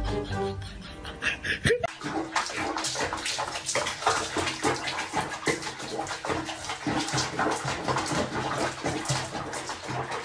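About two seconds in, water starts splashing and running in a bathroom sink where a cat is being bathed, with background music underneath. Before that there is only music.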